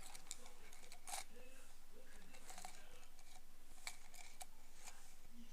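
Ear pick scraping inside an ear canal: irregular short crackles and scratches, a couple of them louder, about a second in and near four seconds.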